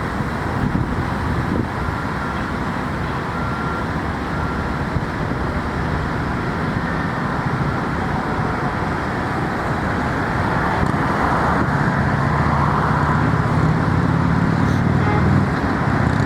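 Steady road traffic noise, with a vehicle's engine hum growing a little louder from about ten seconds in.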